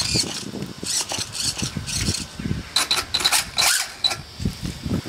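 Small radio-controlled car driving on concrete. Its electric drive motors whir in short, uneven bursts as it starts and stops, and its tyres scuff on the floor, with a few short squeaks about three seconds in.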